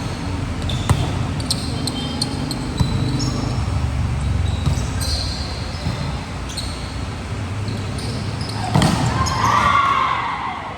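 Indoor volleyball game: sneakers squeak repeatedly on the court floor, with a few sharp ball hits. About nine seconds in, players shout.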